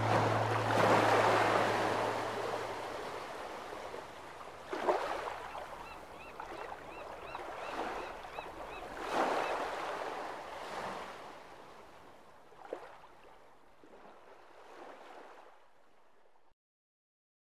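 Waves washing onto a shore in a series of swells, one every couple of seconds, gradually growing quieter and then stopping abruptly near the end. The last held note of the guitar music dies away in the first few seconds.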